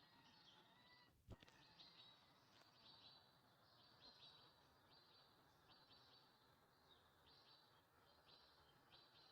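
Faint birdsong: a small bird repeating short, high chirps about once or twice a second over a low hiss, with a single sharp click about a second in.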